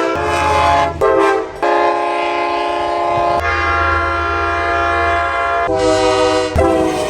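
Multi-chime locomotive air horns sounding one chord blast after another, several different horns in quick succession with abrupt changes every second or two. A low rumble runs beneath some of the blasts.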